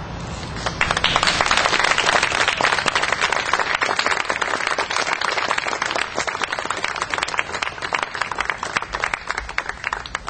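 A crowd of guests applauding: dense clapping starts about a second in, holds strong for several seconds, then thins out near the end.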